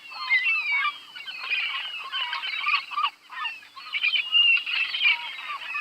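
A flock of seagulls calling, many overlapping short, sharp cries.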